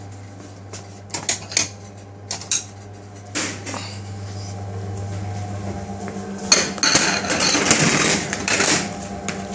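Plates and bowls being handled in a kitchen: scattered clicks and knocks in the first few seconds, then a denser clatter of crockery for a couple of seconds near the end, over a steady low hum.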